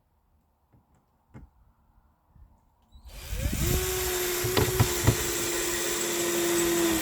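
Power drill driving a screw into a wooden step board. After a few quiet seconds with faint clicks, the motor spins up with a rising whine about three seconds in and runs at one steady pitch for about four seconds, with a couple of sharp ticks partway through.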